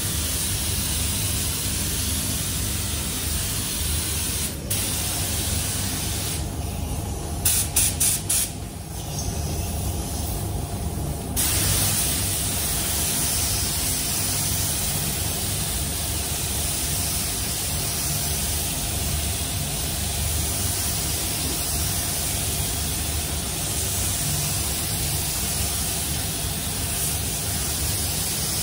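Gravity-feed spray gun spraying primer: a steady hiss of atomising air over a low hum. About six seconds in the hiss stops for about five seconds, broken by four quick blips, then starts again.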